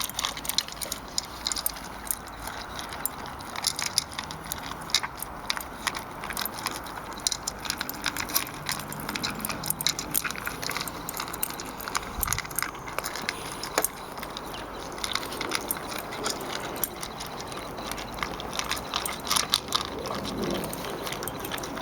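Young boxer dog eating a bowl of dry kibble: a continuous run of crunching and clicking as it chews.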